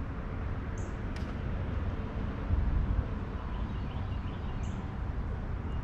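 Steady low rumble of outdoor background noise on a fishing boat, with a couple of faint short clicks and a slight swell about halfway through.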